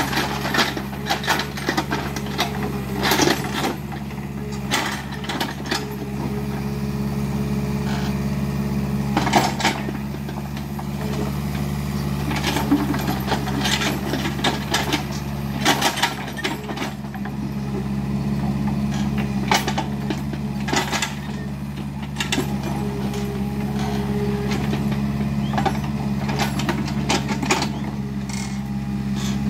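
Kubota mini excavator's diesel engine running steadily, with frequent sharp cracks and knocks scattered through as it works clearing trees and brush.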